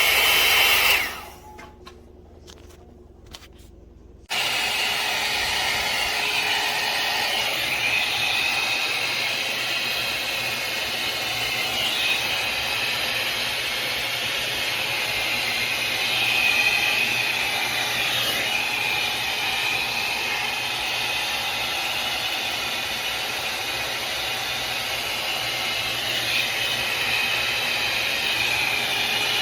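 Hot air brush hair dryer running: a steady whir of its motor and blown air. It stops about a second in and comes back on suddenly about three seconds later.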